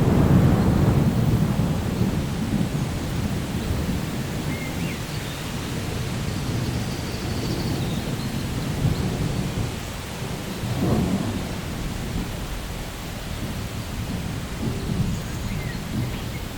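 Steady rain with rolling thunder. The thunder's low rumble is loudest at the start, fades, and swells again about two-thirds of the way through.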